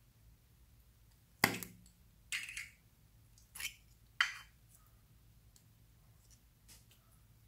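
A small plastic slime tub snapping open with one sharp click about a second and a half in, then three shorter sticky sounds as the jelly slime is pulled out and handled.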